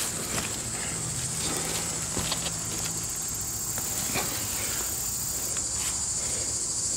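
Tomato plant leaves and stems rustling as a hand pushes through the foliage and pulls off a ripe tomato. A steady high insect drone runs underneath.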